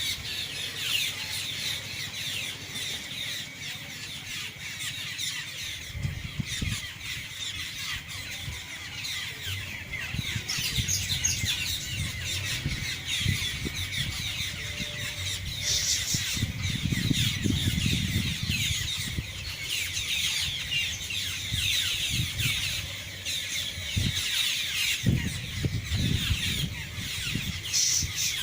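A large flock of birds chattering and squawking continuously, with many short, harsh calls overlapping all the time.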